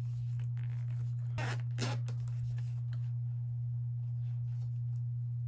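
A steady low hum, with two short scraping sounds about a second and a half in, and fainter rustles around them, as the camera's carrying case and packaging are handled.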